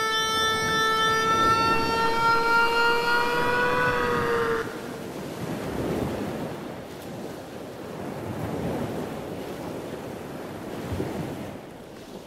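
A steady high whine with overtones rises slightly in pitch and cuts off abruptly about four and a half seconds in. After it, small waves wash on the beach, with wind on the microphone.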